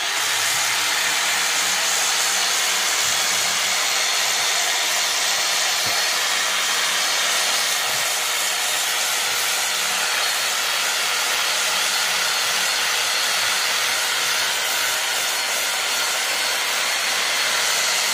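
Corded electric rotary sander running steadily with its sanding disc pressed against a patch of epoxy filler on a boat hull, grinding the filler level before painting.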